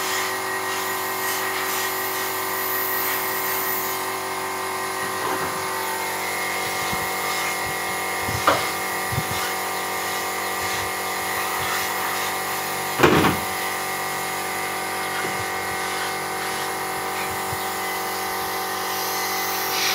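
Compressed-air paint spraying: an old suction-feed spray gun hissing as it sprays paint, over the steady hum of the air compressor that feeds it. A brief louder sound breaks in about 13 seconds in.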